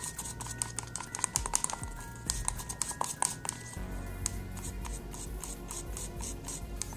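A tool stirring liquid two-component polyurethane around the inside of a paper cup, giving rapid, irregular scraping and clicking.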